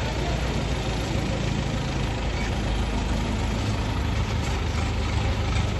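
A truck's engine running steadily with a low, even hum.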